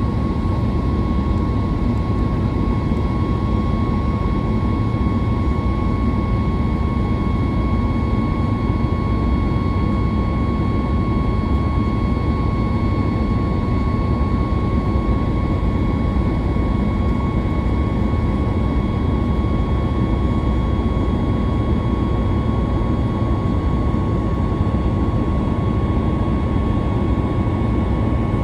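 Jet airliner's engines running steadily under takeoff power, heard from inside the passenger cabin as a constant low rumble with a steady high whine over it.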